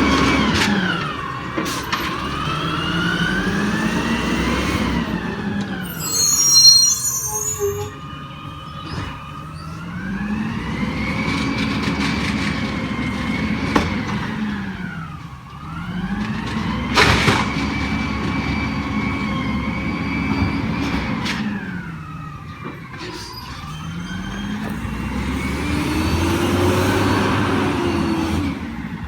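Peterbilt 320 garbage truck's engine and hydraulic pump whine rising and falling again and again as the Amrep packer cycles, the pitch climbing, holding high for a few seconds, then dropping back. A couple of sharp clanks or air hisses cut through.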